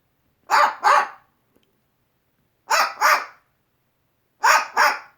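Cockatoo mimicking a dog's bark: three double barks, about two seconds apart.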